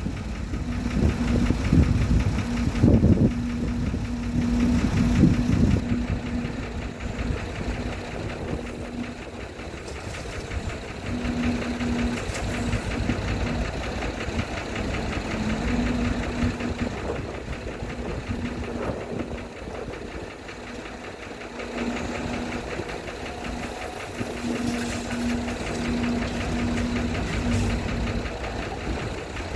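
Diesel engine of a dump truck or excavator running steadily, with loud low thumps in the first few seconds.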